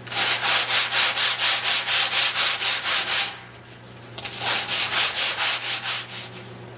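Glued fanfold-foam glider pieces rubbed quickly back and forth on skateboard grip tape used as sandpaper, a run of fast scraping strokes at about six a second. The strokes stop for about a second, then start again and stop shortly before the end. The edges of the two pieces are being sanded even.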